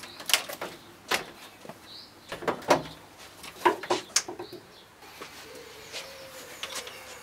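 Bonnet of a BMW E36 being released and lifted: a handful of sharp clicks and clunks over the first four seconds or so, with birds chirping faintly.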